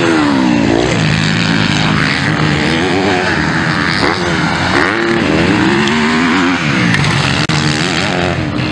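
Motocross dirt bikes racing past, their engines revving hard and easing off over and over as they take the jumps, several bikes overlapping.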